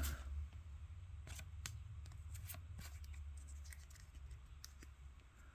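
Trading cards handled in the hand: faint, irregular light ticks and clicks as the freshly opened cards are slid and sorted, over a low steady hum.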